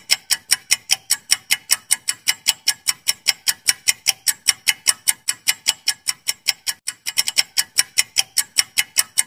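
Clock-ticking sound effect of a countdown timer: sharp, even ticks at about four a second, with a brief stumble of doubled ticks about seven seconds in.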